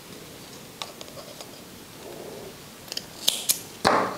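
Small scissors snipping crochet yarn: a few faint ticks of handling, then a quick cluster of sharp blade clicks about three seconds in.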